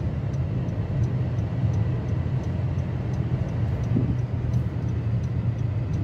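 Steady road and engine rumble of a car heard from inside the cabin while driving, with a faint tick about twice a second.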